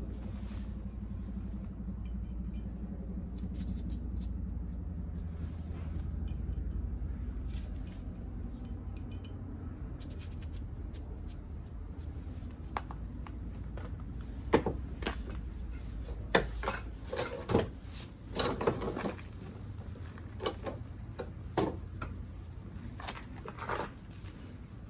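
Metal tools and small engine parts clinking and knocking against each other in a run of sharp clinks, mostly in the second half, over a steady low hum at the start.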